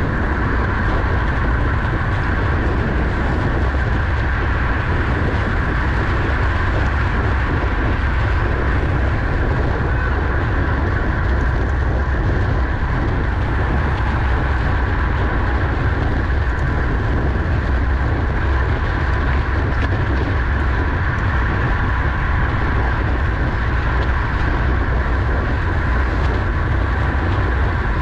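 Steady rush of wind and road noise from a racing bicycle at speed, a heavy low rumble on the microphone with a steady higher hum over it.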